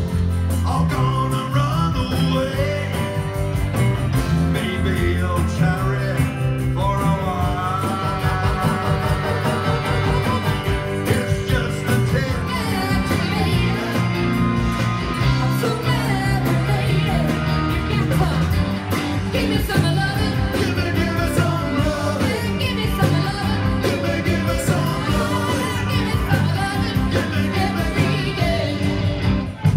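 Live rock band playing a song with electric guitars, bass and drums, with a singer's vocal over the band, heard from the audience floor of a small club.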